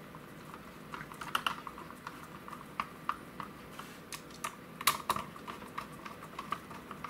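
Small irregular clicks and ticks of a screwdriver turning small mounting screws into a hard drive's metal casing, the screws snugged down through silicone grommets. The loudest clicks come about a second and a half in and about five seconds in.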